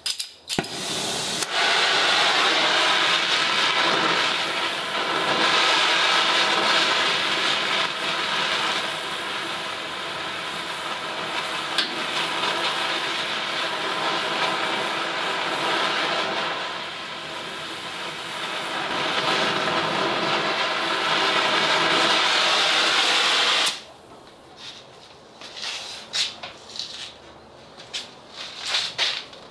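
Steady hissing rush of a heat tool playing on the dented sheet-metal bed. It starts about a second in and cuts off suddenly near the end, followed by a few light knocks.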